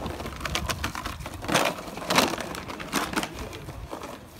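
Rustling and scuffling in grass as Malinois puppies chase a leather bite tug dragged along on a cord, with a few short, sharp swishes.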